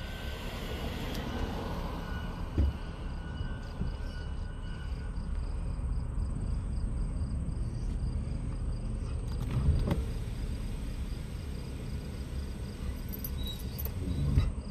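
Low, steady road and engine rumble inside a truck cab while driving, with insects chirping in an even rhythm outside. Three short knocks come about two seconds in, near ten seconds and just before the end.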